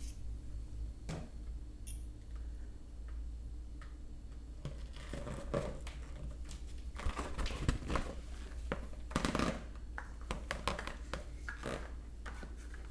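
An inflated rubber balloon being rubbed by hand, making irregular rubbing and squeaking strokes. The strokes are sparse at first and come thicker and louder from about five seconds in, over a faint low hum.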